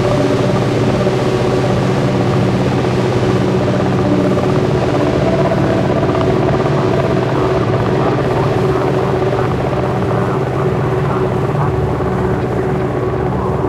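Dark ambient synthesizer drone: several low steady tones held over a dense, rumbling noise bed, with no break or beat.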